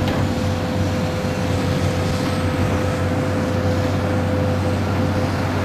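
Diesel engines of an articulated dump truck and a tracked excavator running steadily, with a thin steady whine on top.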